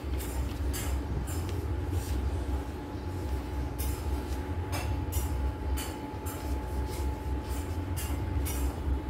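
Coloured pencils scratching on paper in short strokes, about two a second, over a steady low hum with a faint whine.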